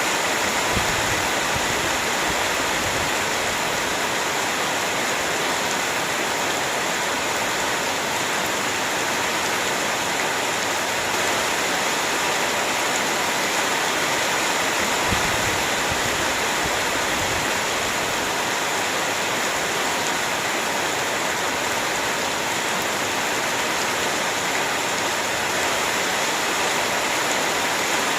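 Heavy rain falling steadily, a dense even hiss of countless drops, with a few soft low thumps along the way.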